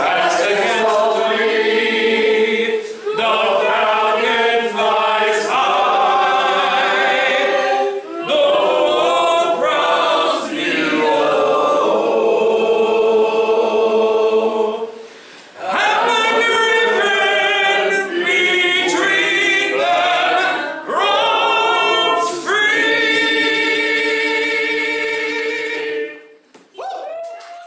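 A small group of voices singing a song together in unison, in long held phrases with short breaks for breath; the singing ends about 26 seconds in.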